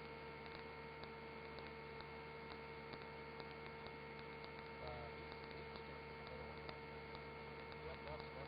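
Faint steady electrical hum with a light, regular ticking a few times a second: the line noise of the helicopter's radio and intercom audio feed between transmissions.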